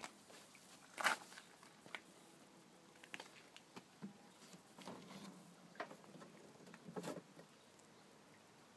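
Faint, scattered footsteps and handling scuffs: a few short, irregular soft clicks, the loudest about a second in and another near seven seconds. No engine is running.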